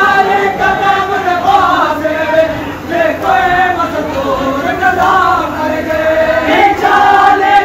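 A group of men chanting a mourning lament together, the melody moving in long held notes.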